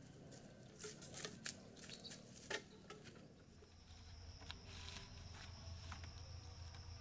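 Faint footsteps and rustling on leafy ground with scattered small clicks as a load strap is handled; a faint steady high tone and low hum come in about three seconds in.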